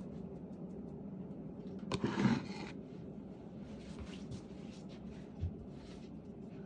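Kitchen food-preparation handling: a short rustling scrape about two seconds in and a few light taps, over a steady low hum.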